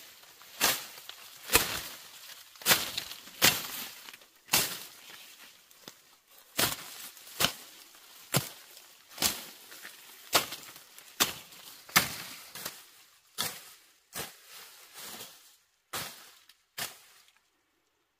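A machete slashing through grass, ferns and brushy undergrowth: sharp cutting swishes about one a second, unevenly spaced, that stop near the end.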